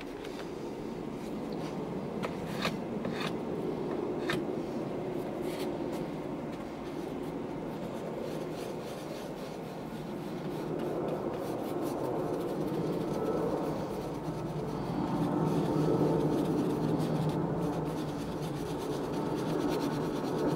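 A paintbrush rubbing and scrubbing paint onto a canvas, in strokes that swell and fade, with a few sharp clicks in the first few seconds.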